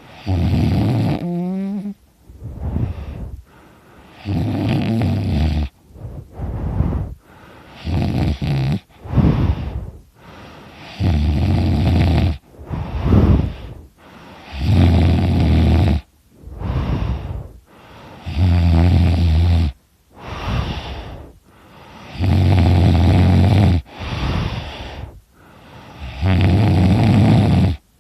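A man snoring very loudly: eight heavy snores come about every three and a half seconds, with quieter breaths between them. A brief rising tone follows the first snore.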